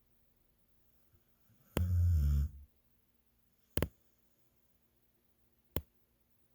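Snoring: one loud, low snore about two seconds in, lasting under a second, then two short sharp clicks about two seconds apart.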